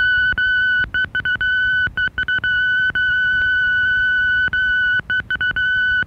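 A single steady, high electronic tone recorded on a 1986 GTE answering-machine message cassette and played back on a cassette deck. It is broken by many brief dropouts.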